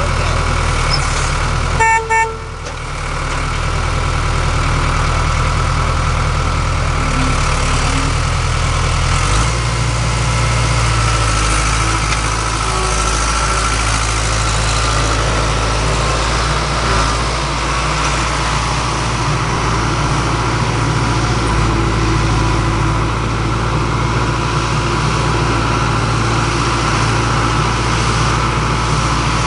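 Skid steer loader engine running steadily, with two short beeps of its horn about two seconds in. Around nine seconds in the engine note shifts to a different steady pitch as the revs change.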